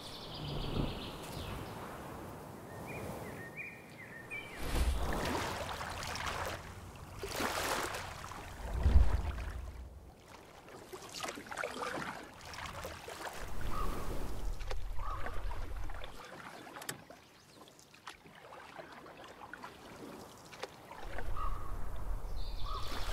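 Canoe paddles dipping and pulling through lake water, with several swells of splashing, gusts of wind rumbling on the microphone and a few bird chirps.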